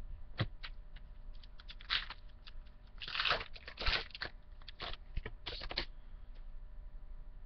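Foil-wrapped 2013 Bowman baseball card packs and cards being handled close to the microphone: a run of crinkling, crackling rustles and small clicks, busiest in the middle, that dies away for the last second or so.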